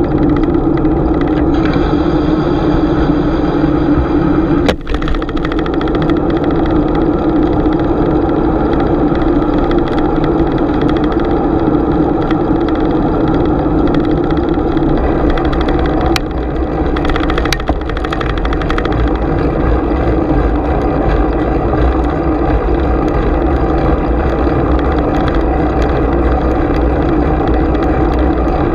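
Bicycle in motion heard on a GoPro's microphone: a loud, steady rush of wind and tyre noise with a low hum. It dips briefly about five seconds in and again around seventeen seconds.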